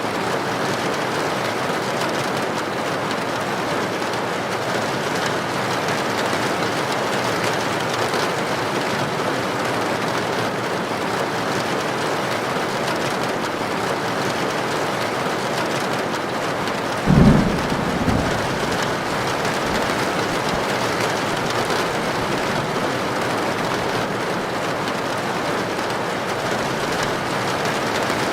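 Heavy rain pouring steadily on a tin roof. About two-thirds of the way through, a brief low thunder crack, with a smaller one just after.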